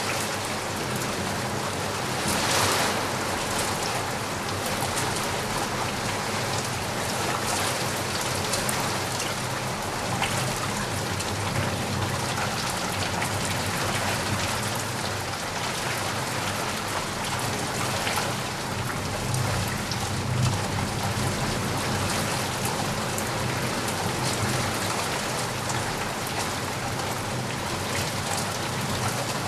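Steady heavy rain falling on a surface, a dense even hiss broken by occasional louder splashes of individual drops.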